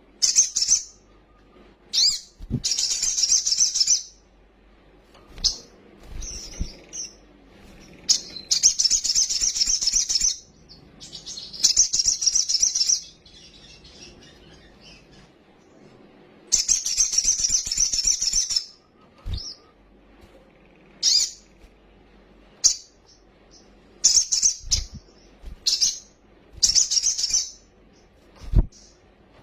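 Sunbird song: loud, high, rapid trills lasting about two seconds each, alternating with short sharp chirps and brief pauses.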